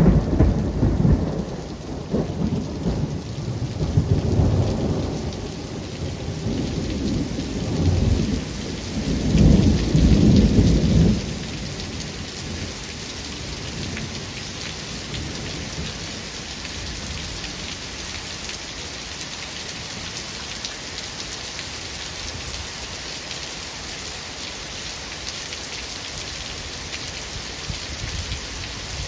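Steady heavy rain with rolling thunder that rumbles and swells several times, then dies away about eleven seconds in, leaving only the rain.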